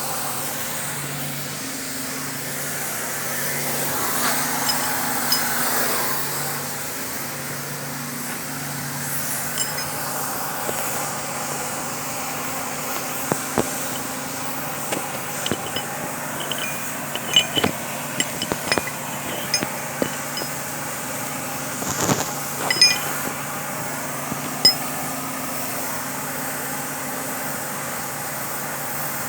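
Steady low hum of running machinery, with scattered metal clinks and taps, most of them between about halfway and near the end.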